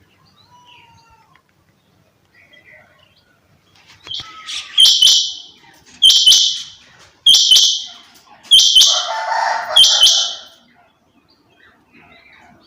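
A quail giving five harsh, rasping calls, about a second and a quarter apart, starting about five seconds in.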